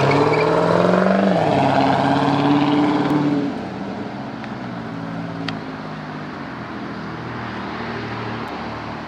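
2001 Pontiac Bonneville's 3.8-litre Series II V6 just after starting, its revs climbing for about a second, then dropping back and settling to a steady idle about three and a half seconds in. It runs normally on freshly replaced coil packs that cured a crank-but-no-start fault.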